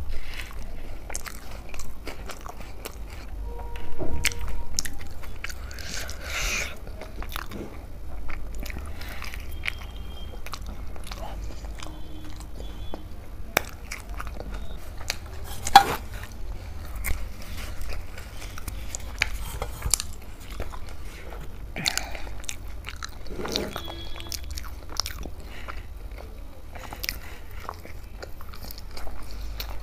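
Close-miked eating sounds: chewing and biting on tandoori roti dipped in dal makhani, with wet lip smacks and finger-licking among many short clicks.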